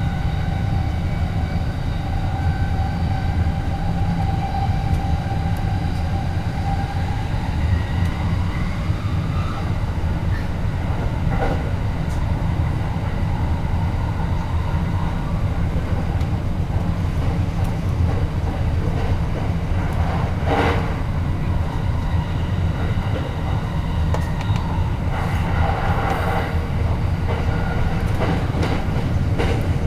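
Train in motion: a steady low rumble of wheels on the rails, with faint whining tones above it and a few brief clicks, the clearest about two-thirds of the way through.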